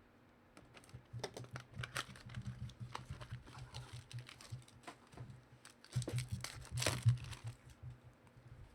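Trading card packaging being opened and cards handled by hand: irregular crinkling, tearing and clicking, busiest about six to seven seconds in.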